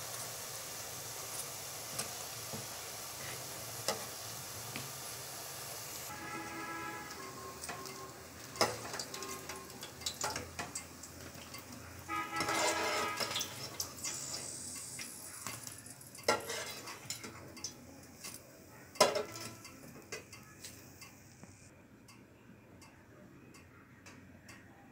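Hot oil sizzling around dough balls frying in a wok, with a metal slotted spoon scraping and clinking against the pan. The sizzle fades about six seconds in, leaving scattered sharp knocks and clinks of utensils and bowls being handled.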